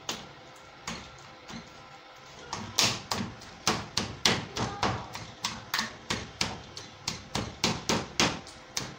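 A spoon knocking against a plastic mixing bowl as a fish filling is stirred, heard as a few scattered taps and then, from about two and a half seconds in, quick regular clicks about three a second.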